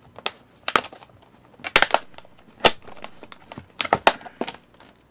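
Plastic takeout food container being opened by hand: the lid cracks and snaps in a series of sharp clicks, with plastic crinkling between them.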